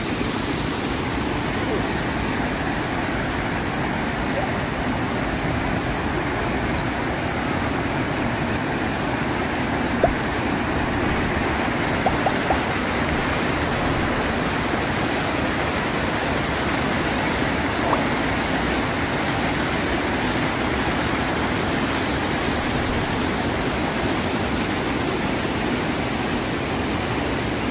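Brown floodwater of a river swollen by heavy rain pouring over a concrete dam spillway and churning through rocky rapids: a loud, steady rush of turbulent water.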